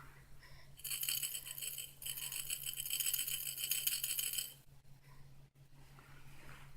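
Baby's toy rattle shaken rapidly: a bright, fast rattling for about a second, a brief pause, then over two seconds more before it stops.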